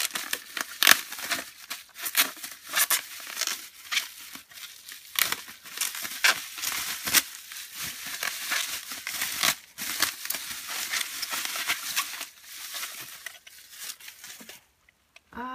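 Plastic bubble wrap being crinkled and pulled away by hand as a small toy is unwrapped: many sharp crackles and rustles that stop about a second before the end.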